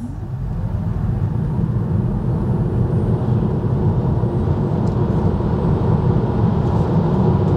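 Tesla Model 3 Standard Range Plus accelerating flat out from a standing start, heard from inside the cabin. The electric motor's whine rises in pitch over the first second or so, under tyre and road noise that grows steadily louder as the car gains speed.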